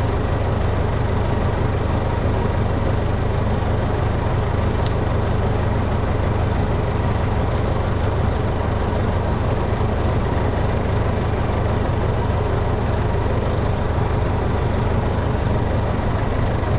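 Tractor engine running at a steady speed, a constant low drone that does not change.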